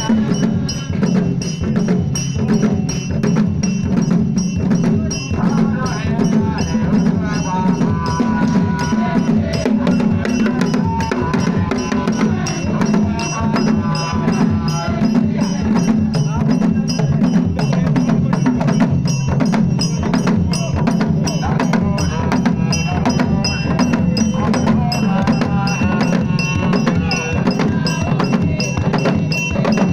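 Several shoulder-slung wooden barrel drums beaten by hand in a fast, steady rhythm, with a group of voices singing along.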